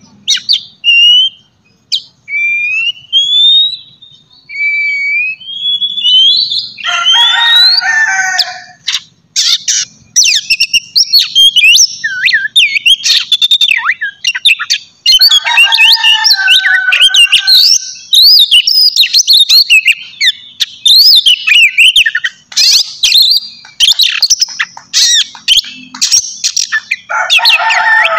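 Oriental magpie-robin (kacer) singing a loud, varied song of whistled notes sliding up and down. The song is sparse at first and becomes a dense run from about ten seconds in. Harsh, raspy rattles break in three times: about seven seconds in, around sixteen seconds, and near the end.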